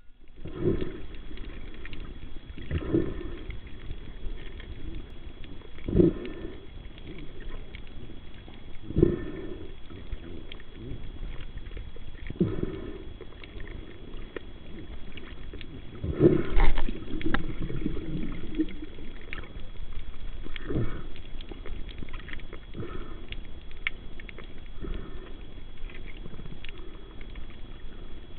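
Water sloshing around a snorkeler's camera, with a whooshing surge every few seconds and a faint steady high-pitched whine underneath.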